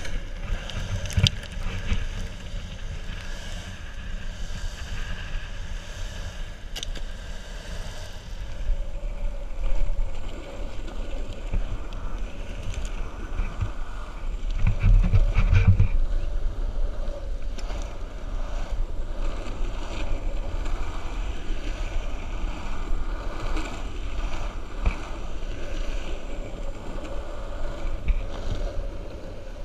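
Longboard wheels rolling on asphalt: a steady low rumble with wind noise on the microphone, a sharp knock about a second in, and a louder, rougher rumble around halfway through.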